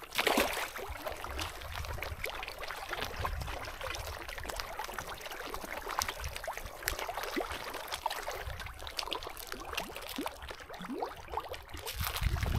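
Many pond fish feeding at the surface among floating feed pellets: a constant patter of small splashes, pops and slurps.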